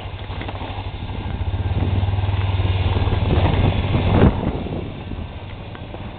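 Arctic Cat 1000 ATV's V-twin engine working hard on a snowy hill climb, growing louder to a peak about four seconds in, with a short sharp knock there, then easing off.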